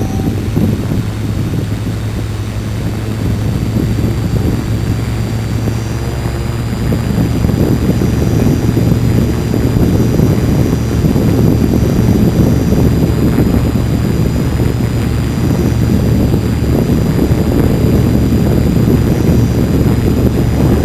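Motors and propellers of a DJI multirotor with a Naza flight controller spinning steadily while the craft sits on the ground, a constant hum with a high whine, a little louder after several seconds. The model is stuck in failsafe with the transmitter switched off, so the motors keep turning.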